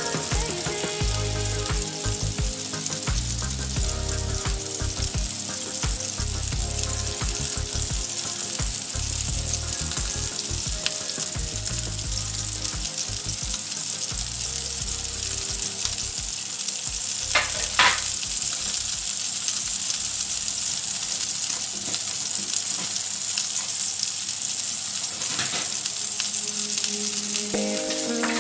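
Sirloin beef steak frying in oil in a pan: a steady sizzling hiss, with a couple of sharper pops about two-thirds of the way through. Soft background music plays underneath.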